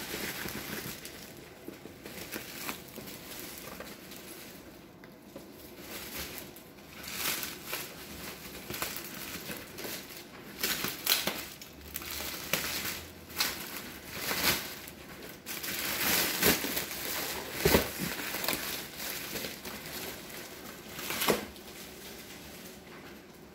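Black plastic wrapping crinkling and tearing as it is slit with a utility knife and pulled off a cardboard box, in irregular rustling bouts with sharper rips, busiest in the second half.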